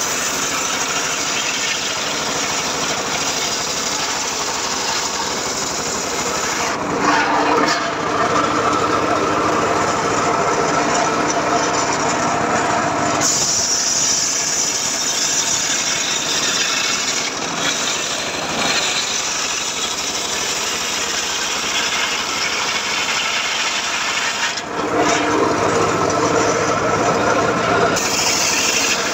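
Homemade circular sawmill running with its blade cutting teak, a continuous loud rasping saw noise. The sound changes character about 7, 13 and 25 seconds in as the cut loads and eases.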